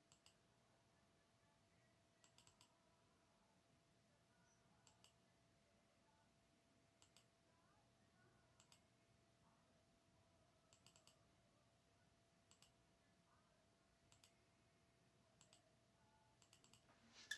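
Faint computer mouse clicks, single and in quick pairs or triples, every one to three seconds, over near-silent room tone with a faint steady hum.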